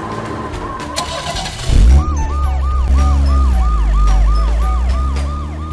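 Police car siren yelping, a quick rise and fall in pitch repeated about three times a second, starting about two seconds in over a deep engine rumble. A rushing whoosh comes just before it starts.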